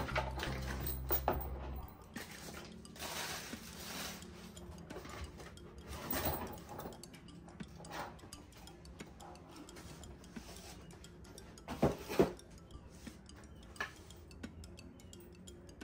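Unpacking sounds of an IKEA Virrmo lamp: cardboard box rustling and scraping as the cable and metal lamp parts are lifted out, with scattered clicks and two sharp knocks about twelve seconds in.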